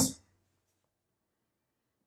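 The tail of a man's spoken word fading out just at the start, then near silence: room tone.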